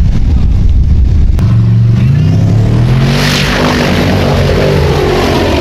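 Formula Offroad buggy's engine running hard with a heavy rumble. After a cut about a second and a half in, the revs climb and then fall away as the buggy skims across water, with a hiss of spray.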